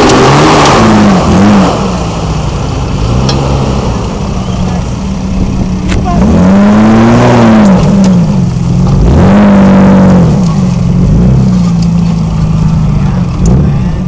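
Modified Jeep Cherokee XJ engine revving hard and repeatedly while climbing a sand dune off-road. Pitch rises and falls several times with bursts of throttle, loud throughout.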